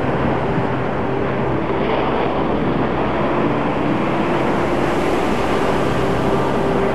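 Ocean surf breaking on a sandy beach and around rocks: a continuous dense wash of waves, with a faint steady low hum underneath.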